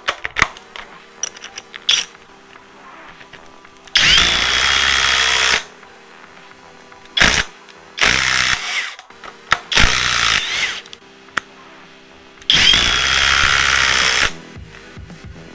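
Cordless impact driver driving a screw in several trigger pulls. The longest runs come about four seconds in and near the end, with shorter bursts in between.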